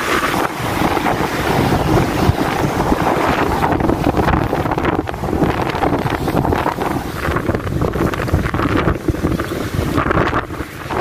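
Wind buffeting the phone's microphone over waves breaking and washing against a rocky shore.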